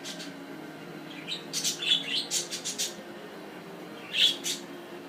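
Siberian husky whining in short, high-pitched squeaks: a quick cluster of them in the first half, then two more near the end, the dog's protest at being scolded.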